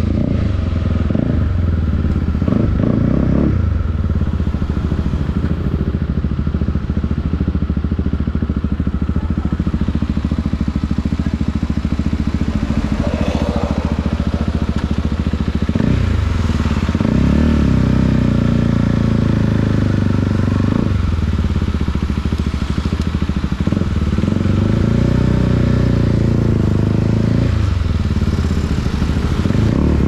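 KTM RC 390's single-cylinder engine running under way. Its note rises and falls with the throttle and changes abruptly several times, as the gears are shifted.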